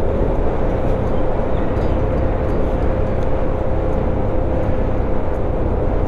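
Yamaha NMAX scooter riding at a steady low speed: the engine holds a steady tone over a constant low rumble of wind and road noise.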